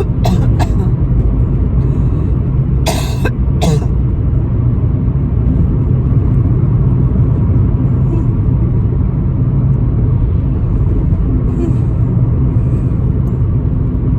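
Steady low road and engine rumble heard inside a moving car. A few short, sharp noisy sounds break through in the first four seconds.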